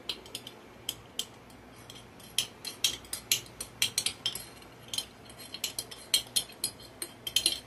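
A metal utensil clinking and scraping against the inside of a glass canning jar as home-canned sauerkraut is dug out, in many sharp, irregular clinks, several a second and some in quick clusters.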